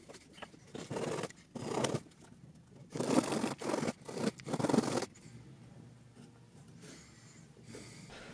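A long flat blade sawing and slicing through a cork stopper: about six short scraping strokes in the first five seconds, then only faint handling.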